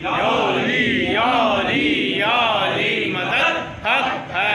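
A boy's voice chanting a melodic recitation, the pitch rising and falling in long wavering phrases, amplified through a microphone. It breaks off briefly near the end.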